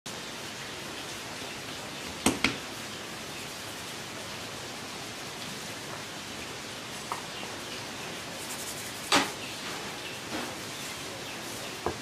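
Dough being worked by hand on a floured table, heard as a few sharp knocks and slaps on the tabletop over a steady hiss: two quick ones a little after two seconds in, and the loudest about nine seconds in.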